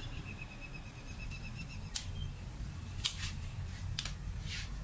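A few short scratching strokes and light clicks of a pencil and steel rule marking lines on an MDF board, over a low steady background rumble.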